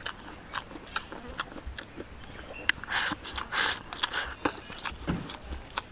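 A person eating rice and stir-fried edamame with chopsticks: wet chewing and biting with many small clicks of chopsticks and mouth. Two short rushing sounds a little after the middle come as the food is shoveled from the bowl rim into the mouth.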